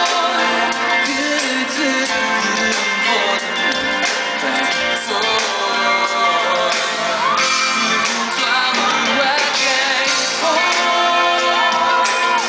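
Live pop band music in a large hall with a male lead singer singing into a microphone, heard with very little bass.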